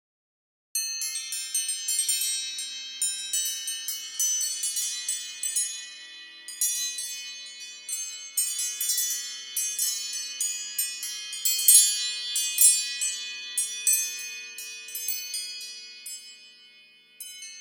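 iPhone ringtone of high, bell-like chimes: many clear notes struck in quick, irregular succession, each ringing and fading, starting about a second in.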